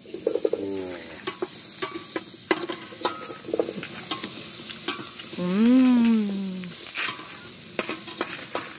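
Jerusalem artichokes sizzling in a stainless steel pot on a camping gas stove, stirred with a slotted spatula that scrapes and clicks against the pot. A drawn-out pitched tone rises then falls a little past halfway.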